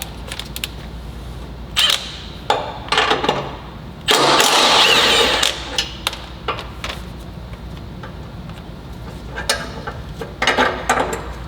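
A power tool on the 14 mm bolts of the exhaust flanges, run in short bursts of about a second as it loosens them, with one longer, louder run of about a second and a half near the middle.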